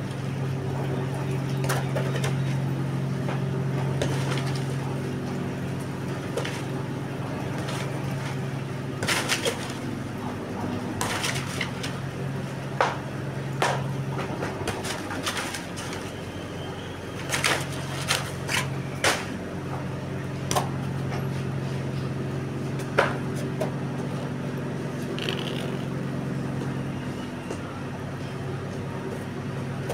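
Irregular slaps and thumps of fists hitting a small plastic punching bag hung on a rope, mostly in the first two thirds, over a steady low hum.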